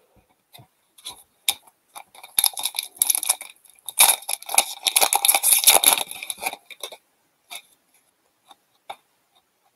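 Crinkling and tearing of a foil trading-card pack wrapper from an Upper Deck hockey hobby box, heaviest in the middle, with light clicks of cards being handled before and after.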